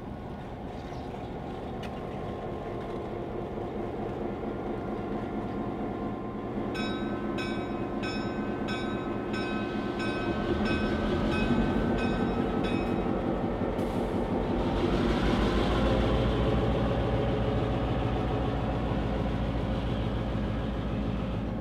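CF7 diesel locomotive running light past at close range, its engine rumble growing louder as it approaches and passes. For about six seconds midway its bell rings about twice a second. A little after that the engine note turns deeper and louder.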